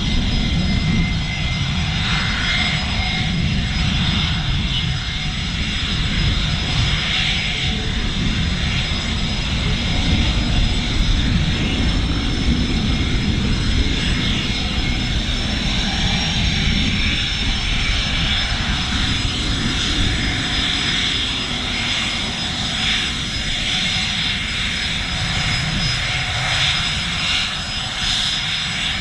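Gulfstream G450 business jet taxiing, its Rolls-Royce Tay turbofans running at low taxi power. Steady high whine over a low rumble.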